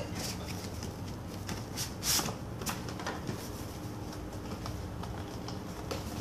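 Cardboard doll-accessory boxes being opened and handled: a few scattered scrapes and taps as the flaps are pulled open and the boxes shift against each other, the loudest about two seconds in.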